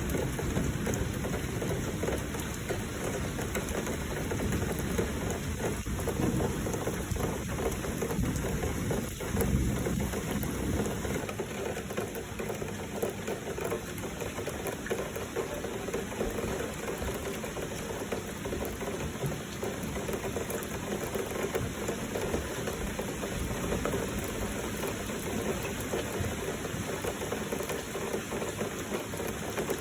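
Steady heavy rain with flowing water, an even hiss throughout. A deeper rumble sits under it for roughly the first third and then eases off.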